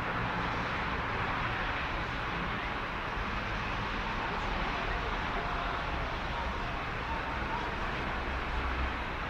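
Steady outdoor urban background noise: an even hiss with a low rumble underneath, unchanging throughout, with no distinct events.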